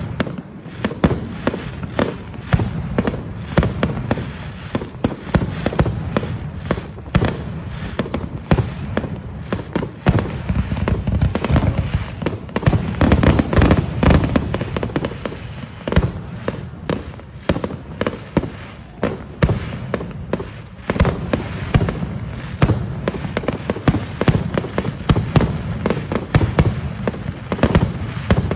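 Fireworks display finale: aerial shells going off in a rapid, unbroken barrage of bangs, several a second.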